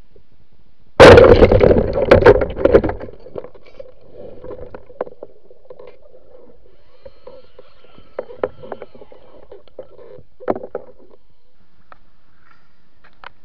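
Speargun fired underwater: a loud sudden crack about a second in, followed by clattering that dies away over about two seconds. After that there is a faint steady underwater hum with scattered clicks, and a short knock later on.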